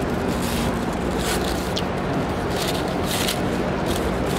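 Paper sandwich wrapper rustling and crinkling in short rustles every second or so as it is unwrapped by hand, over a steady background rumble of a large hall.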